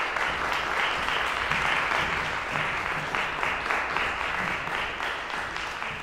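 Audience applauding: dense, continuous clapping from many hands, easing off a little toward the end.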